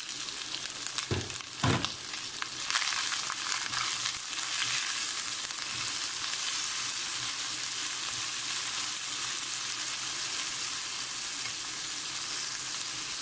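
Chopped tomatoes and ginger paste sizzling steadily in hot oil in a nonstick pan while being stirred with a silicone spatula. There are a couple of sharp knocks in the first two seconds.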